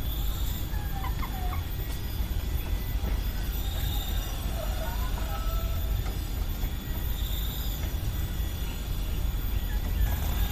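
A chicken gives a few faint, short calls, once about a second in and again around five seconds, over a steady low rumble.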